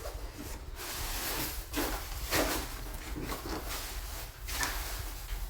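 A series of knocks and clatters as garbage bags are thrown out and a trash-room door or bin lid is handled, over a low steady hum.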